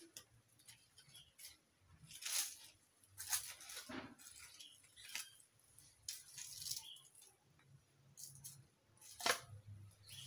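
Scattered rustles, scrapes and light knocks of yard debris being picked through by hand, irregular and without a steady rhythm, with louder clatters about two seconds in and near the end.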